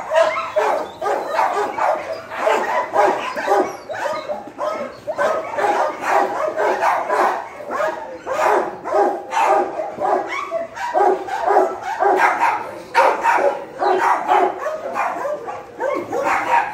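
Many dogs barking continuously, the barks overlapping several times a second.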